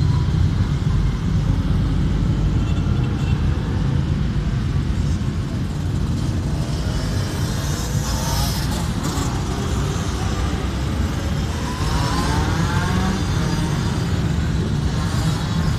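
A continuous stream of motorcycles riding past, many engines running together. A rising rev stands out about eight seconds in and again around twelve seconds in as riders accelerate.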